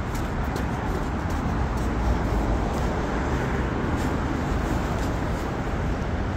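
Steady rumble of road traffic outdoors, an even hum of passing vehicles with no distinct single event.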